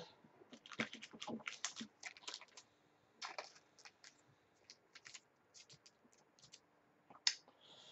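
Trading cards being handled in the hands: quiet, irregular clicks and light scrapes of card stock, with one slightly sharper click near the end.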